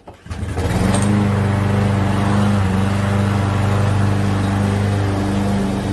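Walk-behind gas lawn mower engine running steadily under load while mowing grass. The sound comes in abruptly about half a second in and then holds an even pitch.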